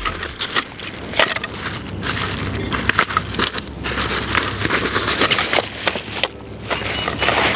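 Plastic packaging crinkling and rustling as the parts of an inflatable boat's oars are unpacked by hand, with irregular crackles and light knocks from the plastic pieces.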